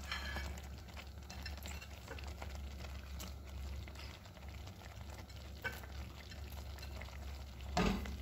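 Thick crawfish étouffée simmering in a pan on a gas burner, faint bubbling with small pops now and then over a steady low hum. One brief louder bump comes near the end.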